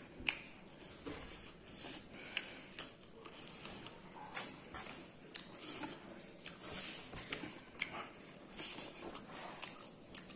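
Soft eating sounds from a person eating instant noodles by hand: scattered small clicks, smacks and squishy rustles of chewing and of fingers gathering the noodles, irregular and quiet.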